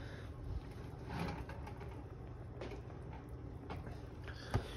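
Cast iron skillet of broth and vegetables simmering faintly on an electric coil burner, with one sharp knock about four and a half seconds in as the pan is shifted on the burner.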